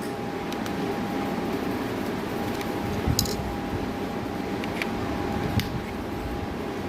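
Steady background hiss with a faint steady hum, broken by a few light clicks about three, five and five and a half seconds in.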